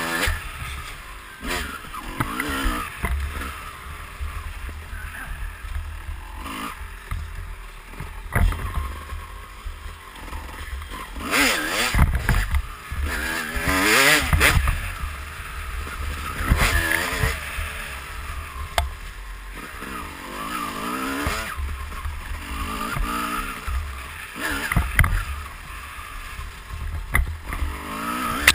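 2004 Kawasaki KX250's single-cylinder two-stroke engine revving up and easing off over and over as the dirt bike is ridden over a trail, with a steady low wind rumble on the helmet-camera microphone and a few knocks from bumps.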